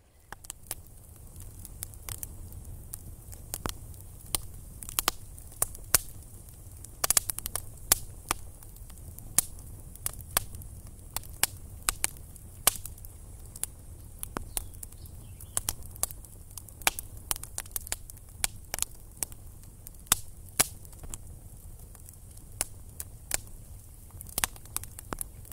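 Wood campfire crackling: irregular sharp pops and snaps, sometimes several close together, over a low steady rumble.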